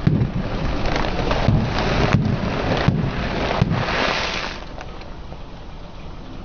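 Car tyre rolling over and crushing brittle objects: dense crackling and crunching with several sharp cracks for about four and a half seconds, then it stops and only a low rumble remains.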